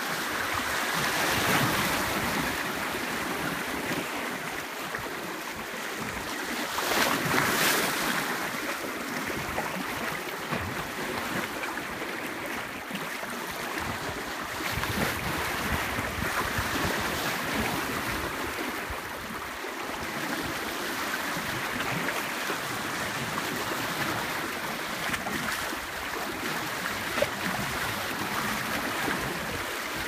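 Sea surf washing onto a beach, with louder surges about 2 and 8 seconds in, and wind on the microphone.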